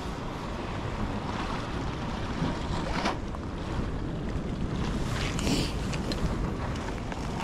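Wind buffeting the microphone over the wash of sea waves, a steady low rumble, with two brief louder rushes about three seconds in and again about five and a half seconds in.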